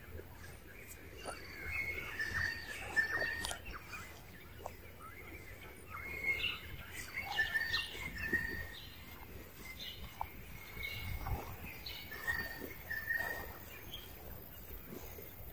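Birds chirping, with many short repeated calls over an outdoor background.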